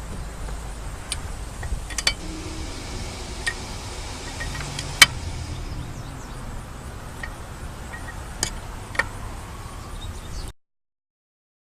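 Scattered sharp clicks and clunks over a low steady rumble, from handling a car and its tire-changing gear. The loudest knock comes about five seconds in, and the sound cuts off abruptly near the end.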